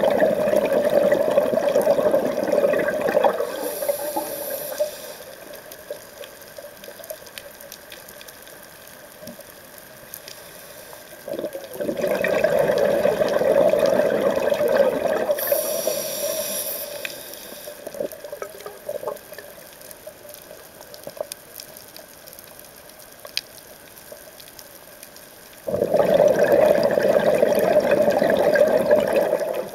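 A scuba diver's breathing through a regulator underwater. There are three loud bursts of exhaled bubbles, each a few seconds long and about 13 seconds apart, and the first two are followed by a short hiss from the regulator. Faint water noise fills the gaps.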